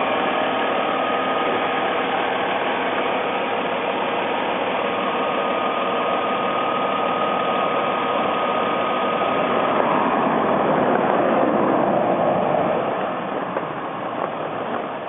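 2006 Mercedes-Benz C280's V6 engine idling steadily with its new water pump, alternator, idler pulleys and belt tensioner, running quietly without belt squeal while the cooling system is bled of air. The sound swells for a few seconds about ten seconds in, then eases off.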